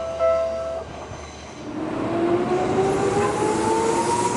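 A level-crossing warning bell ringing in a repeating two-tone pattern stops under a second in. From about a second and a half, a Seibu electric train passes close by with its traction motors whining, the whine rising steadily in pitch as the train speeds up.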